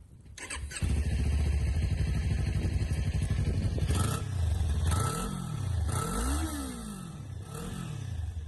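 Kawasaki Ninja 400 parallel-twin engine cranked on the starter and catching about a second in, idling, then revved three times in quick blips near the end.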